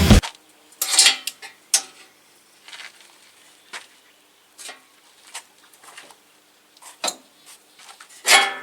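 Scattered light metallic clinks and knocks of metal parts and tools being handled, some ringing briefly. The loudest come about a second in and near the end.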